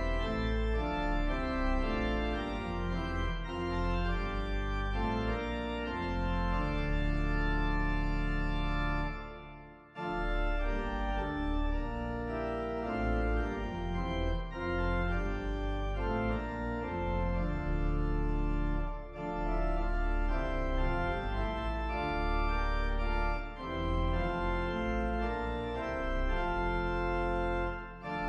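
Organ music: held chords moving in phrases, with short breaks between phrases.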